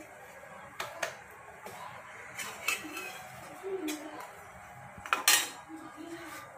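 Scattered clicks and clatter of a wooden rolling pin and hands on a steel rolling board as a stuffed potato paratha is pressed out and rolled, with the loudest clatter about five seconds in.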